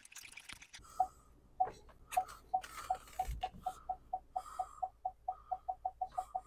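Ford pickup's rear parking-sensor beeps: a single mid-pitched tone that starts about a second in and repeats faster and faster, from about twice a second to about four times a second, as the truck backs closer to the trailer coupler. A low engine hum runs underneath.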